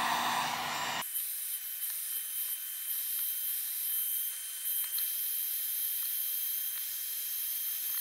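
Drill Master heat gun blowing hot air: a steady hiss. Its lower sound cuts out abruptly about a second in, leaving a thin, high hiss.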